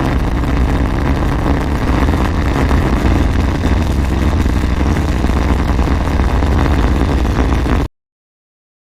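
Rocket engine at launch: a loud, steady rumbling roar, heavy in the low end, that cuts off suddenly about eight seconds in.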